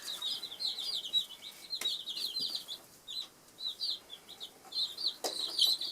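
Two-day-old chicks peeping: a rapid run of short, high-pitched peeps, with a brief lull about three seconds in.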